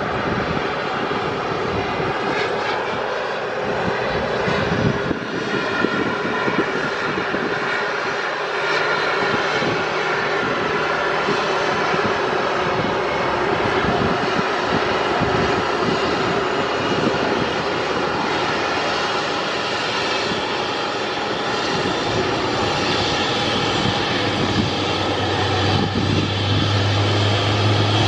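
Airbus A319 jet airliner's turbines whining steadily during pushback: an even rush with several high held tones over it. A deep steady hum joins near the end.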